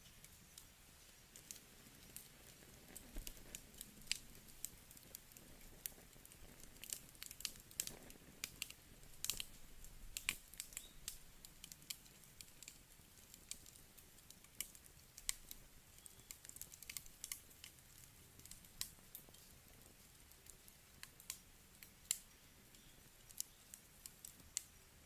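Wood campfire crackling quietly: irregular sharp pops and snaps from the burning wood over a faint low hiss, thickest around the middle.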